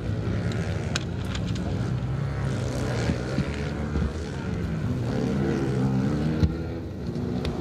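Motocross bike engines droning around the dirt track, one climbing in pitch as it revs up about five seconds in; a sharp click about six and a half seconds in.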